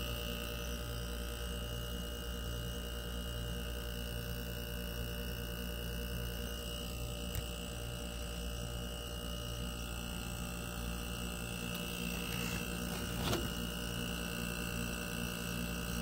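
A 2021 Frigidaire window heat pump humming steadily in its defrost cycle, its compressor running to melt the frost off the outdoor coil. There is a faint tick about thirteen seconds in.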